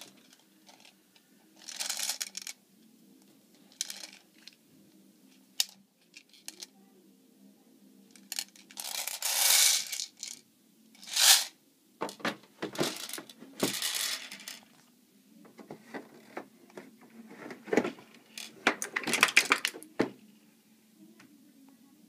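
Packaging rustling and crinkling in irregular bursts, with a few sharp knocks, as an airsoft rifle is unboxed.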